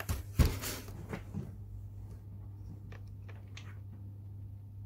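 Steady low electrical hum from the model railroad's mains transformer. A single sharp knock comes about half a second in, followed by a few light clicks.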